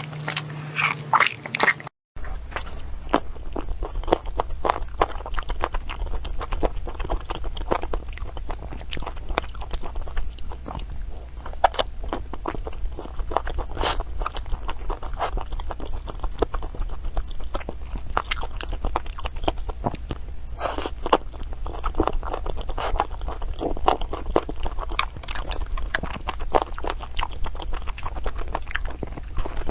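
Close-miked crunchy chewing and biting of food, a dense run of crisp crackles and clicks. The sound drops out briefly about two seconds in, then the chewing carries on.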